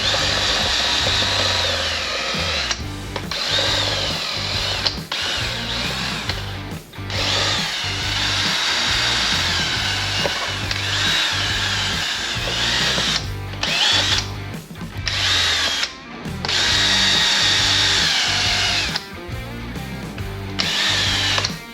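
Hand-held power tool scrubbing stripped paint out of a wheel's crevices, running in spells and stopping briefly several times, over background music.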